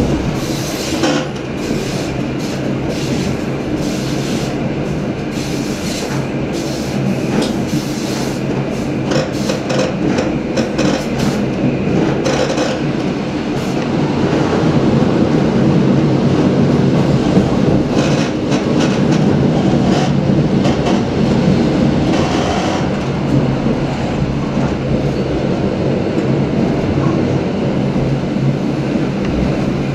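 Passenger train carriage running at speed, heard from inside: a steady rumble of wheels on rails with a quick run of sharp clicks over the track in the first dozen seconds. The rumble grows louder about halfway through.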